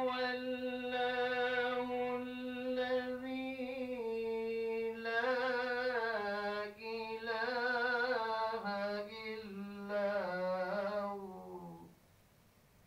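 A single voice reciting the Quran in a drawn-out melodic style: one long unbroken phrase of held, ornamented notes whose pitch steps gradually downward, cutting off near the end.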